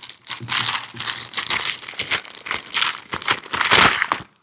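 Irregular crinkling and rustling of the packaging around an instruction manual as it is handled and pulled out, stopping suddenly near the end.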